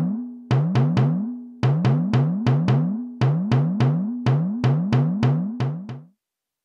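Dubbed-in drum hits, each a thump whose pitch drops quickly, struck about twenty times in an uneven rhythm in place of the hammer taps on the bearings, stopping about six seconds in.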